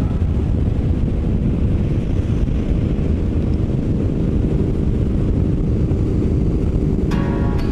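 Motorcycle on the move: a steady low engine rumble mixed with wind buffeting on the rider's microphone. Music comes in near the end.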